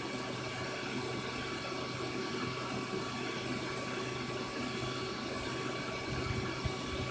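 Aquarium filter running in a turtle tank: a steady wash of circulating water with a constant low hum.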